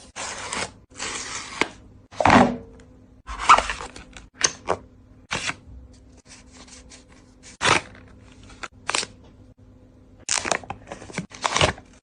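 Unboxing handling sounds: a string of short rustles and scrapes of packaging and light taps, irregularly spaced, over a faint steady hum.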